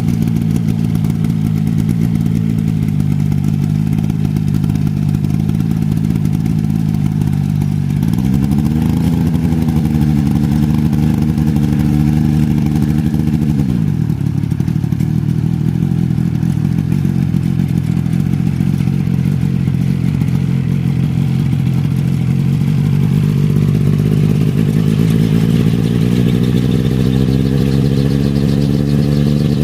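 Piston engine of a coaxial twin-rotor helicopter running cold. The revs rise about eight seconds in, hold for several seconds, drop back, then climb steadily again toward the end.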